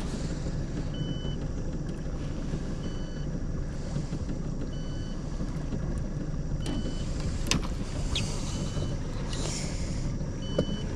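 Boat motor running steadily at trolling speed, a low even rumble, with a short electronic beep repeating about every two seconds. A few sharp clicks in the second half.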